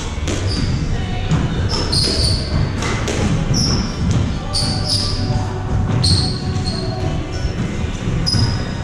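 Squash rally: the ball smacks off rackets and the court walls again and again, and sneakers squeak short and high on the wooden floor between the hits.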